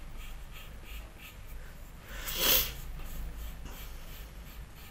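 Pencil lightly scratching on paper in short strokes as a circle is sketched, with one loud breath near the microphone about halfway through.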